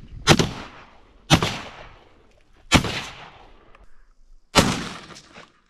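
Shotgun fired four times, roughly a second and a half apart, each blast followed by a short fading rumble.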